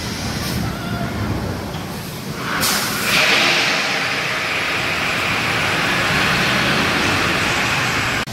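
Skyrush steel roller coaster train rushing over the track overhead: a rising rush about two and a half seconds in that then holds at a steady loud level.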